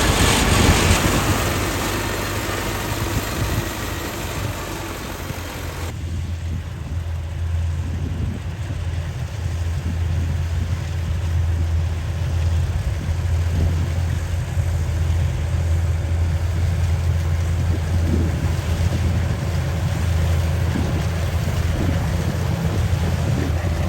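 Diesel engine of a rice combine harvester running steadily with a low drone, with wind noise on the microphone that drops away about six seconds in.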